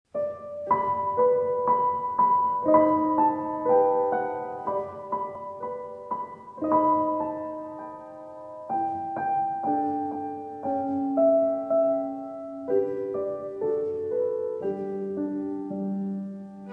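Background piano music: a melody of struck notes over changing chords.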